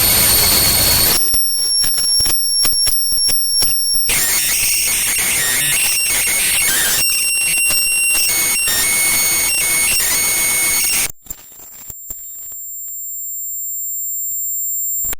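Garbled, distorted noise sound effect: harsh hiss with steady high whistling tones, stuttering and cutting in and out. About eleven seconds in it gives way to a thin high whine that grows louder and then cuts off suddenly.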